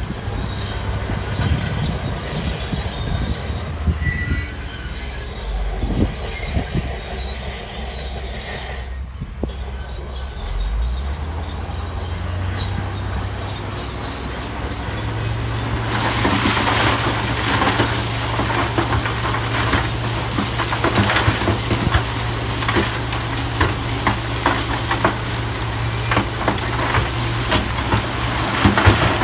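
Shantui DH17 bulldozer's diesel engine running with steel tracks clanking and squealing. About halfway through, the engine note rises, and a louder, dense clatter sets in soon after.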